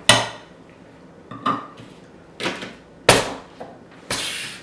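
Plastic Egg Stractor egg-peeling gadget being pushed down hard on a hard-boiled egg: four sharp clacks a second or so apart, then a short hissing rush near the end. The gadget is failing to shell the egg.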